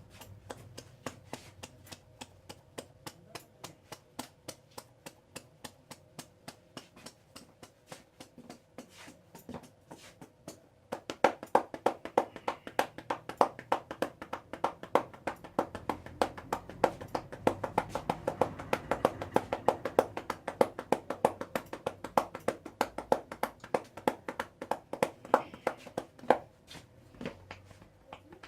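Hands tapping and slapping in a fast, even rhythm of several strokes a second, as in a head and neck massage. It is soft at first, grows much louder a little before halfway, and drops back near the end.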